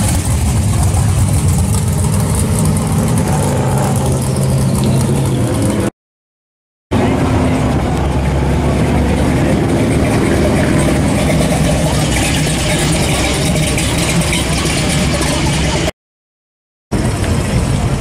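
Classic cars' engines running at low speed as they drive past in turn: first a red 1968 Chevrolet Chevelle, then an early-1950s Ford pickup. The sound cuts to silence for about a second, twice.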